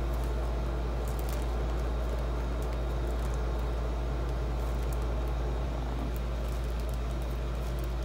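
Steady low hum, with faint light crinkles of a plastic sheet being peeled back off wet poured acrylic paint.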